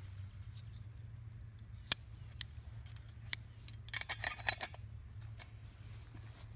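Metal parts of a stainless steel wood-gas camp stove clinking as the heat-tinted top ring with pot supports is fitted into place. A few sharp clicks come first, then a quick run of metallic clinks and rattles about four seconds in.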